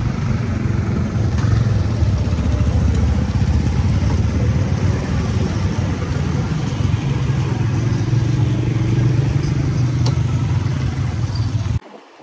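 A convoy of motorbikes and scooters riding past one after another, their small engines running steadily. The sound cuts off abruptly near the end.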